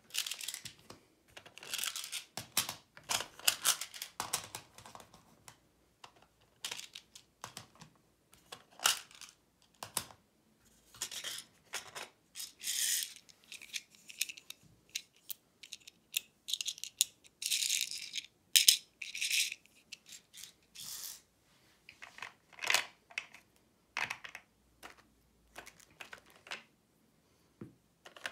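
Small hard plastic pieces being handled and fitted into 3D-printed trays: irregular clicks and rattles with short sliding, scraping sounds.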